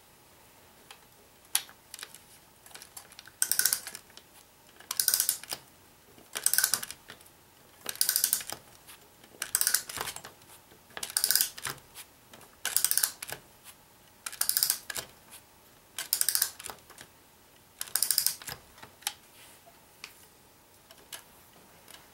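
The clockwork motor of a Bing for Bassett-Lowke LNWR George the Fifth tinplate locomotive being wound with its key: the mainspring ratchet clicks in about ten short bursts, one every second and a half or so, each burst a part-turn of the key. A single sharp click comes just before the winding starts.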